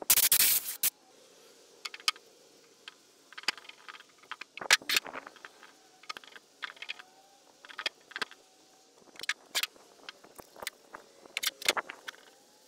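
A cloth rag rubbing boiled linseed oil into a wooden board: short, irregular scraping and brushing strokes. A brief loud rustle opens it.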